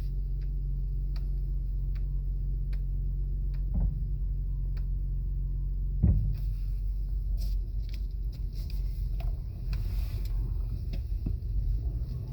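Steady low road rumble of a 2017 Acura MDX on the move, with a faint steady whine and two thumps, the louder one about six seconds in. The whine rises with speed and is thought to come from the front passenger side.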